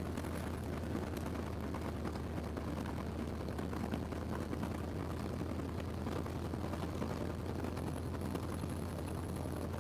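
Cessna 152's four-cylinder Lycoming engine and propeller running at a steady drone, heard from inside the cockpit as the plane rolls across a grass airfield.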